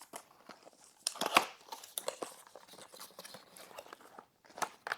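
Packaging of a product box being opened and handled: irregular crinkling, rustling and small clicks, loudest about a second in.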